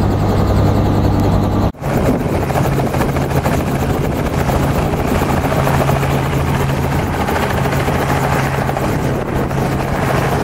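Robinson R44 helicopter's rotor and engine running with a steady drone, heard first from inside the cabin. It breaks off abruptly about two seconds in and resumes as a helicopter heard from outside, running up and lifting off the pad.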